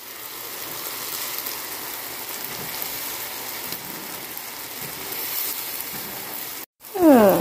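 Beaten egg and chopped strawberries sizzling in oil in a nonstick griddle pan: a steady frying hiss that drops out briefly near the end.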